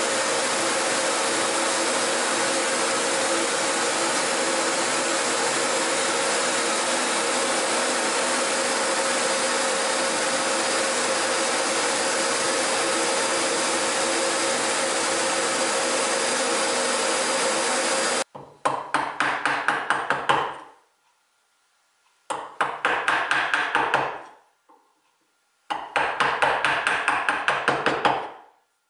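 A drill press and its dust-extraction vacuum run steadily while the bit bores into a wooden block, then stop abruptly about two-thirds of the way in. Three short bursts of rapid, regular knocks follow, as a chisel is worked into the drilled mortise to clean it out.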